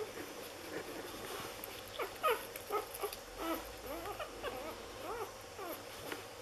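Newborn Lagotto Romagnolo puppies, six days old, squeaking and whimpering while they nurse: a string of short, high calls that rise and fall in pitch, coming thickest in the middle.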